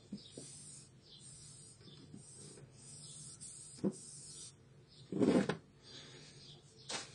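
Hands handling the plastic frame of an HP 17A toner cartridge: faint rubbing as it is wiped with a cloth, a sharp click about four seconds in, and a louder clatter about a second later as the frame is set down on the table.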